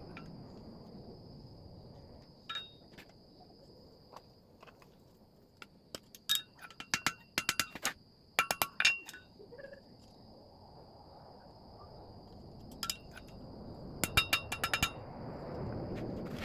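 Hammer blows on steel at the anvil, each strike ringing with a clear metallic tone, coming in quick clusters with pauses between.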